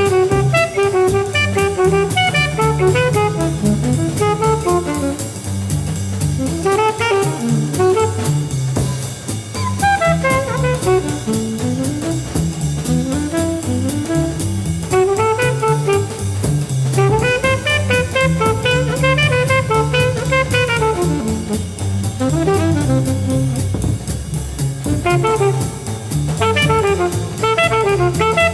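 Live jazz quartet: an alto saxophone plays long, running melodic lines that climb and fall, over double bass and a drum kit keeping swing time.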